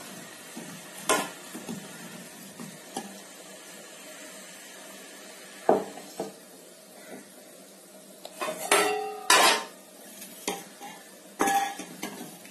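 Wooden hand masher (mathu) working boiled tomatoes in a steel bowl: scattered knocks and squishes of wood on steel, a few with a short metallic ring. The loudest strikes come in a cluster about eight to ten seconds in, with another near the end.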